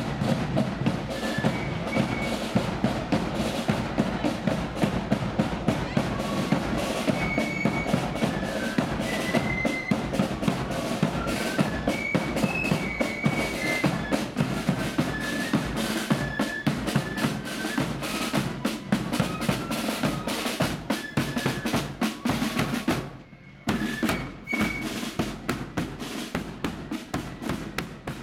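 Marching flute band playing a march: side drums beat a rapid, even rhythm with rolls over a bass drum, and the flutes carry a high melody. The music drops out briefly near the end, then resumes.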